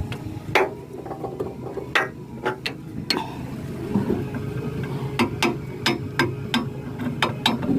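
Machinery running with a steady low hum, over which come many sharp irregular mechanical clicks and knocks, with a busy cluster of them about five seconds in.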